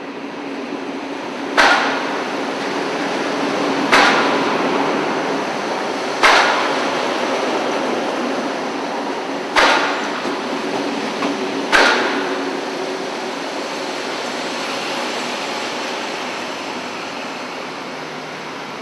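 Diesel multiple unit passing slowly close by with its engine running steadily, and a sharp clank from the wheels on the track every two to three seconds, five in all. The clanks stop about twelve seconds in, and the running sound then slowly fades as the train moves on.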